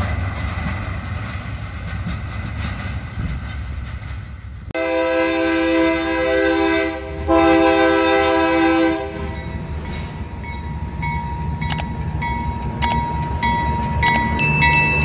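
Freight train rolling past with steady wheel-and-rail noise, then a diesel freight locomotive's multi-note air horn sounds two long blasts of about two seconds each, the second louder. It is followed by the locomotive's engine rumbling close by as it passes, with scattered sharp clicks.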